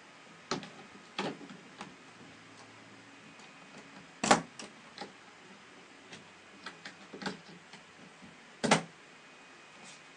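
Scattered clicks and knocks from handling a hard road case, with two louder clunks about four seconds and nine seconds in.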